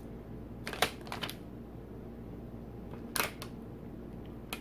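Plastic cookie-dough package being handled close to the microphone: a cluster of short crinkles about a second in, another near three seconds, and a single click near the end.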